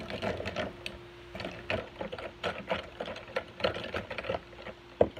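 Metal spoon stirring a thick smoothie in a plastic cup: quick clicks and scrapes against the cup at about three a second, with a sharper knock near the end.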